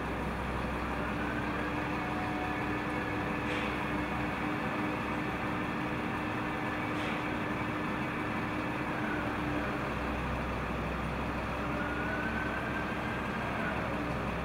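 Heavy diesel plant running steadily, most likely the mobile crane's engine holding the suspended kiln section: a constant low drone with a steady hum that breaks off briefly about ten seconds in, and faint whines that rise and fall.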